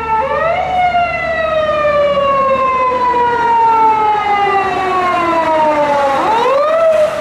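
Siren of an unmarked police car on an emergency run, passing close by. It is a slow wail that rises quickly, falls slowly for about five seconds, then rises again near the end.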